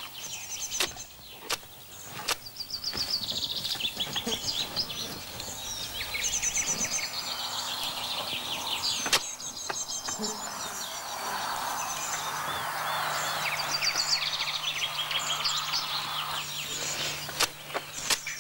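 Many small birds singing and chirping together in the open countryside, a dense chorus of repeated high calls. A few sharp knocks stand out now and then.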